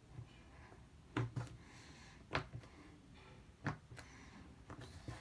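Homemade fluffy slime being worked by hand, giving a few sharp pops and clicks with quiet between them.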